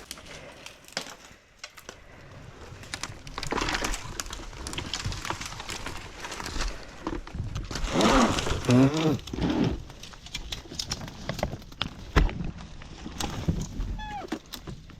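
Brush and branches rustling, scraping and snapping as a rider pushes an electric dirt bike through fallen tree limbs, with many sharp cracks. A brief low warbling sound about eight seconds in is the loudest moment.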